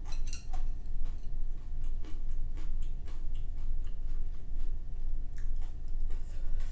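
Close-miked eating: a person chewing, with many irregular crisp clicks and crunches from the mouth, over a steady low hum.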